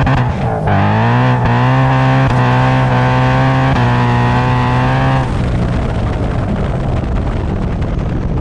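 Supercharged Ford Mustang engine and exhaust revving up and holding high revs, then dropping off about five seconds in to a lower, rougher rumble.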